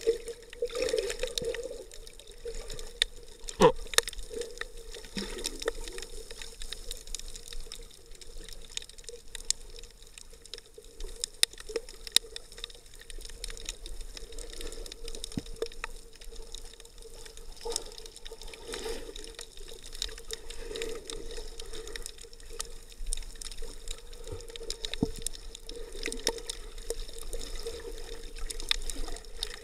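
Water swirling and bubbling around an action camera in its underwater housing, heard muffled through the case, with a hollow tone that swells and fades. Scattered sharp clicks come throughout.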